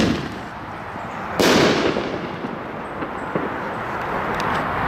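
Brothers Fireworks American Chief aerial ball shell: the launch thump from its mortar tube dying away at the start, then one loud bang about a second and a half in as the shell breaks overhead, with a decaying echo.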